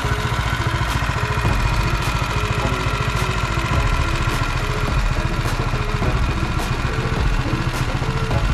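Modified Predator 212 single-cylinder four-stroke engine on a mini bike, idling steadily with a fast, even firing pulse.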